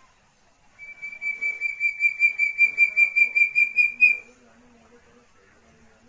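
A young chestnut-bellied partridge (puyuh gonggong) giving a whistled call: a rapid train of pulses on one high pitch, about five a second, growing louder over about three seconds and ending with a short upward flick.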